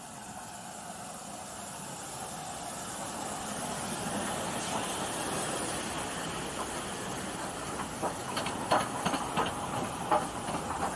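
Two LMS Black Five steam locomotives drawing into the platform with a steady hiss of steam, growing louder as they near and pass. From about eight seconds in comes a run of sharp clanks as the second engine goes by.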